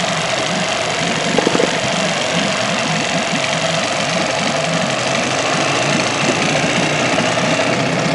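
Evinrude Yachtwin small twin-cylinder two-stroke outboard motor running steadily, just after a hard start. A few brief knocks come about a second and a half in.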